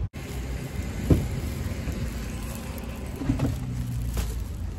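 Car-park ambience: a steady rush of passing traffic with a low rumble, and a few dull knocks about a second in and again in the last second and a half as a car door is opened.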